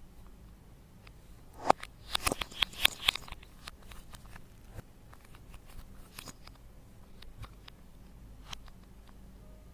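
Slime being worked by hand, giving sticky clicks and pops. A dense run of them comes about two seconds in, then only scattered single clicks.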